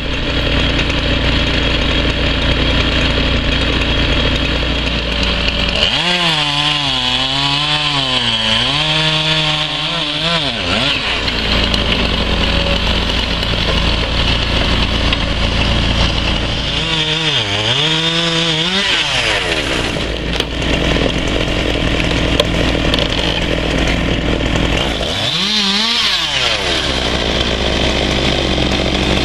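Chainsaw running at high speed, sawing through logs. Its pitch dips and wobbles three times as it bogs under load in the cut, then recovers.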